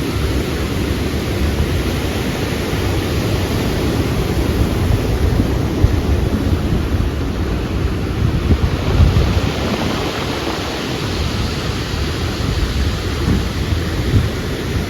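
Ocean surf with wind buffeting the microphone: a steady, loud rush with a deep rumble, swelling louder about six and nine seconds in.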